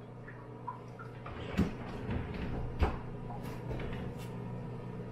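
Plastic supplement tubs knocking and rattling as one is pulled from a pantry shelf, with two sharp knocks about a second and a half apart, over a steady low kitchen hum.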